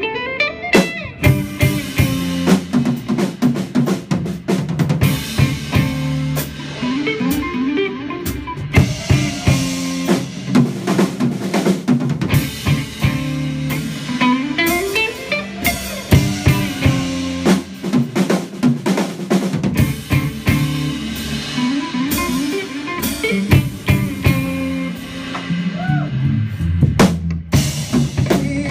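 Live rock band playing an instrumental passage on electric guitar, bass guitar and drum kit, the drums loudest with busy snare and kick hits. A rising pitch slide recurs roughly every seven seconds.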